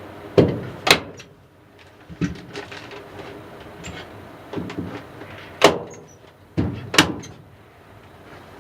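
Hand staple gun firing staples through the paper facing of insulation into the wood framing: a few sharp snaps, about a second in and then twice more near the end, with paper rustling between them.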